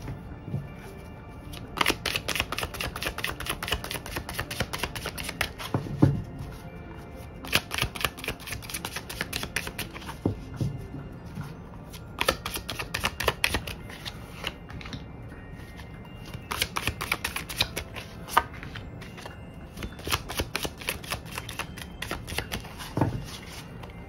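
A deck of tarot cards being shuffled in about five runs of quick flicking clicks, each lasting a couple of seconds with short pauses between, and a few soft knocks of the deck in the hands.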